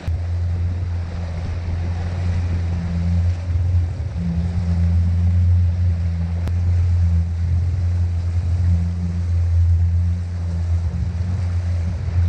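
Yamaha WaveRunner jet ski's engine running steadily at trolling speed, a constant low drone, with water washing along the hull.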